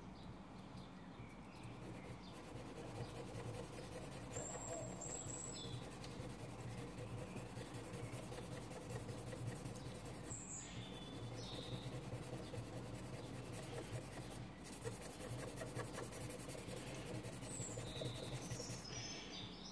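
Amethyst stone being rubbed back and forth by hand on a wet 40/28-micron diamond plate with a rubber backing: a faint, steady scratchy grinding as the coarser scratches are lapped out.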